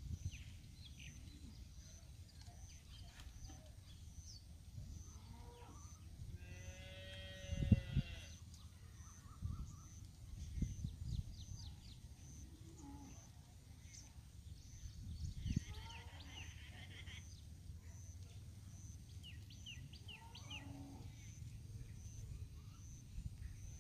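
A farm animal calls a few times, about seven seconds in, again around sixteen seconds and near twenty-one seconds, with small birds chirping in between.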